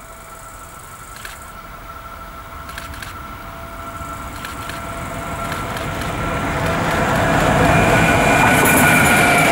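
Electric locomotive hauling a container freight train, approaching and growing steadily louder. A high, steady whine rides over a building rumble of wheels on rail.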